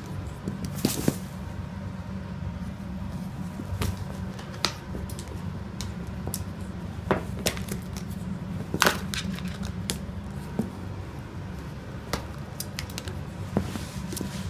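A cockatoo tossing and knocking a plastic lid and a plastic cup about on the floor: scattered sharp clicks and clatters a second or a few seconds apart, over a steady low hum.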